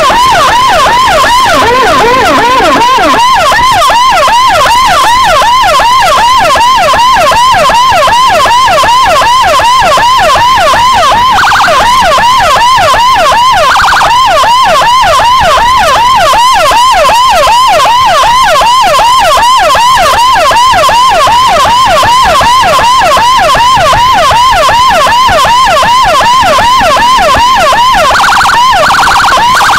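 Escort motorcycle's electronic siren (CJB 200E through a TOA horn speaker) sounding a fast yelp, rapid rising sweeps repeating several times a second, very loud. It is broken a few times by short steady horn-like blasts, twice in the middle and twice near the end.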